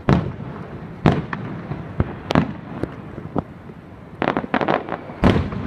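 Aerial fireworks bursting: a string of sharp booms with rumbling tails, a quick run of crackling reports about four seconds in, and one loud boom near the end.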